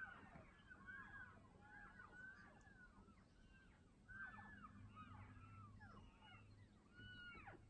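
A herd of elk calling far off: many faint, high, bird-like chirps and mews that arch up and fall in pitch, overlapping several a second, like a crying.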